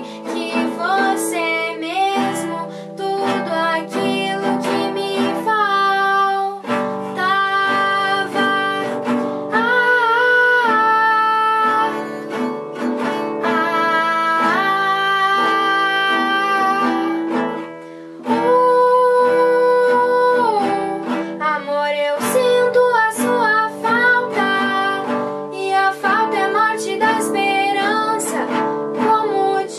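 A girl's voice singing over a strummed acoustic guitar, with long held notes that glide between pitches above steady chords.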